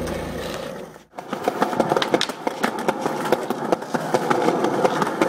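The song fades out in the first second. Then a skateboard rolls on a concrete sidewalk, its wheels giving a steady rumble with a quick run of clicks and clacks.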